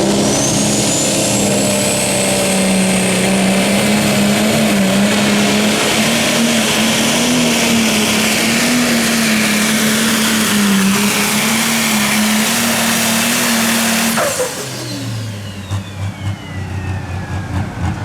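Pulling vehicle's engine running flat out with a high whine that climbs at the start. About fourteen seconds in it is shut down: the pitch drops sharply, the whine winds down, and the engine falls to a low, uneven idle.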